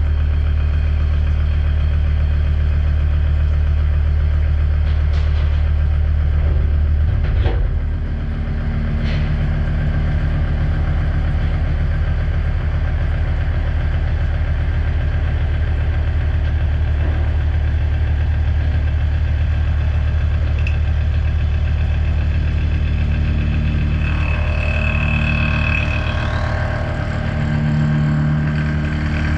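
Mazak horizontal machining center running while cutting AR400 steel plate: a steady low machine hum, with a sharp knock and change in tone about seven seconds in and a brief high whine near the end.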